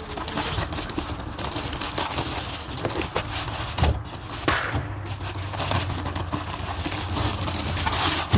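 A package of pepperoni being worked open by hand, its wrapper crinkling and crackling irregularly with scattered clicks and a couple of knocks.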